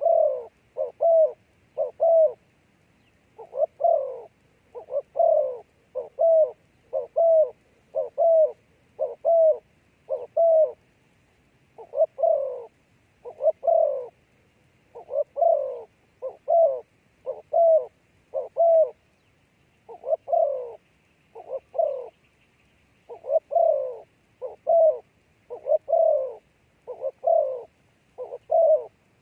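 Dove cooing: a long run of short coos at about one to two a second, broken by a few brief pauses.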